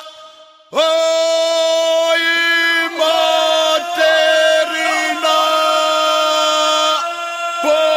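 Ganga, the unaccompanied group singing of the Imotski region: voices hold long, loud notes together. They break off briefly at the start, come back in with an upward slide just under a second in, and the held chord shifts a few times after that.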